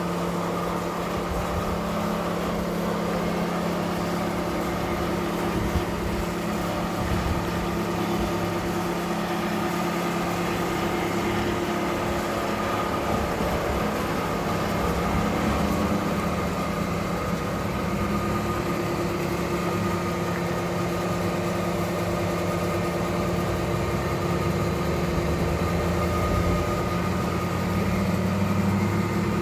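An engine running steadily at an even speed, holding a constant pitch.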